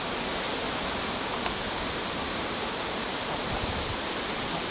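Steady, even hiss with no clear event, apart from one faint click about a second and a half in.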